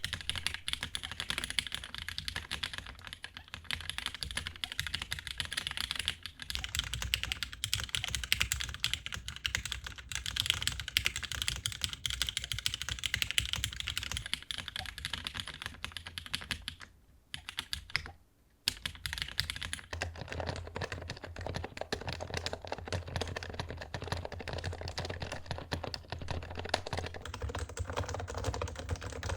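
Fast continuous typing on mechanical keyboards, a dense stream of key clacks. About two thirds of the way through the typing stops for a moment, then resumes with a deeper, fuller sound, a different keyboard.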